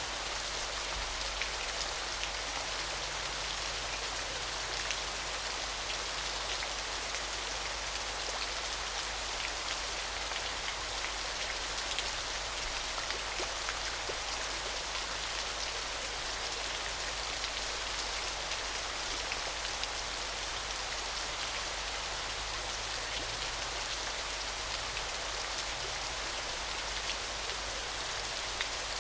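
Small shallow stream babbling and splashing over rocks, a steady gurgling rush of water with many tiny splashes.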